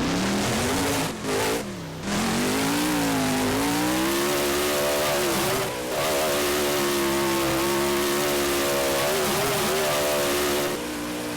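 Monster truck's supercharged V8 engine revving hard, its pitch rising and falling over and over, with brief drops as the throttle is lifted about a second in and again about halfway.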